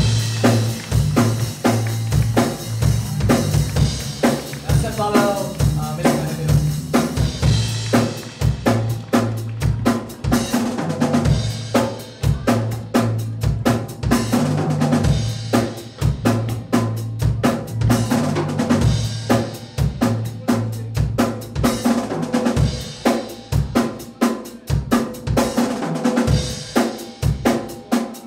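Rock band playing an instrumental passage with no vocals: a fast, steady drum beat with snare and bass drum over a low bass guitar line, with electric guitar.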